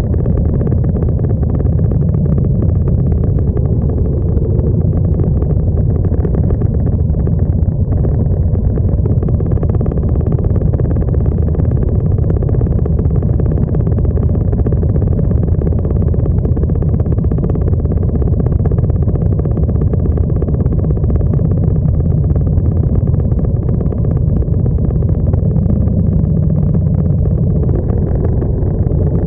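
Several motorcycle engines running steadily at low speed in a slow-moving column of bikes, a continuous low rumble.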